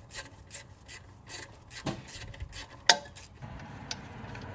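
A 1/4-inch ratchet clicking as it backs out a 10 mm bolt, about four clicks a second with a rasping scrape. One sharper knock comes near three seconds in, and the clicking stops soon after.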